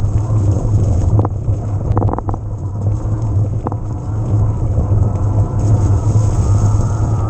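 Ride noise from an electric mountain bike under way: a steady low rumble of tyres and wind on the mic. A few sharp rattles or knocks come through, in a cluster about two seconds in.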